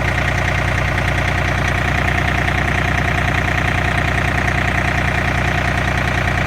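John Deere 3025E compact tractor's three-cylinder diesel engine idling steadily, heard from inside its enclosed cab. It is running in hard cold, with its diesel fuel starting to gel.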